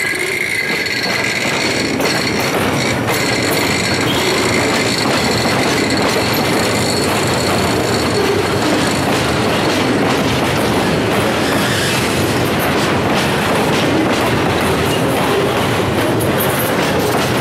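Flatcars loaded with long welded rail rolling steadily past, steel wheels clattering on the track. A high, steady wheel squeal sounds in the first few seconds as the cars take the curve, then fades.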